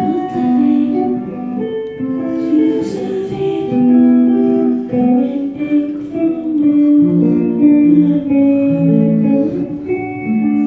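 Electric guitar played live: a melodic line of held notes, one after another.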